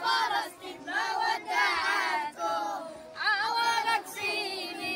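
A group of children's voices chanting together in raised, wavering pitch, in short phrases with brief breaks between them.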